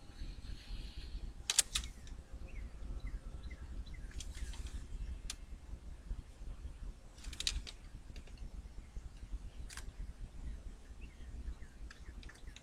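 Low wind rumble on the microphone with faint bird chirps, broken by a few sharp clicks, the loudest about a second and a half in.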